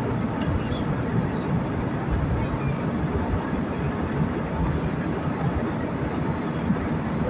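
Steady cabin noise of a jet airliner in flight: an even, low-heavy rush of engines and airflow heard from inside the cabin.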